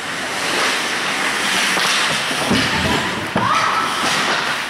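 Ice hockey play along the boards: skates and sticks scraping on the ice, with two thuds of bodies or the puck hitting the boards, the louder about three and a half seconds in. A steady high tone starts right after it and holds to the end.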